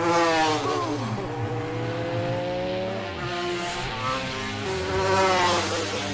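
A racing motorcycle's high-revving engine whines past close by, its pitch dropping sharply, then revs up in two hard rising pulls as it accelerates.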